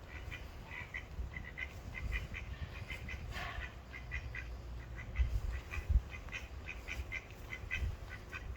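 Mallard ducks quacking in a rapid run of short calls, several a second, with one fuller, louder call about three and a half seconds in. A low rumble runs underneath, with two low thumps a little past the middle.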